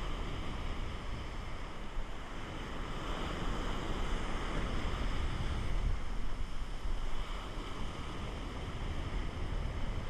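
Ocean surf breaking and washing up the beach, with wind rumbling on the microphone. The wash grows louder around the middle, then eases.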